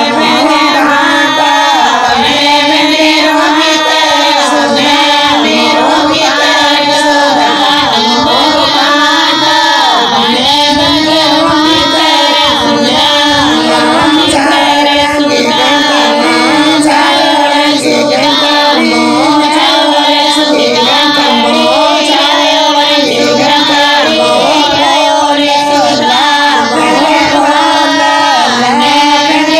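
Bagri devotional bhajan: a high singing voice carrying a melody over steady musical accompaniment, loud and continuous.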